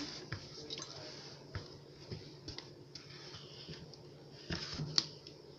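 Plastic cap being worked onto a white plastic drink container: scattered small clicks and knocks, with one sharper click about five seconds in.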